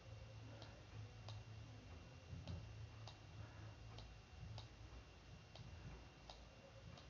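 Faint computer mouse-button clicks in pairs, a press and a release about half a second apart, four times over, as the mouse drags a map across the screen. A low steady hum sits beneath them.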